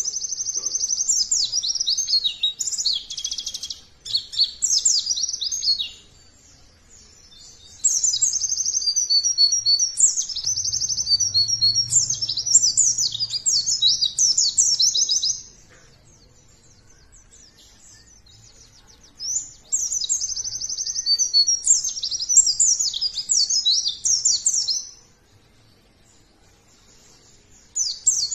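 White-eye (pleci) singing rapid, high twittering phrases in bouts of five to seven seconds, with pauses of a few seconds between; a new bout starts near the end. It is a pancingan (lure) recording, meant to set other pleci singing.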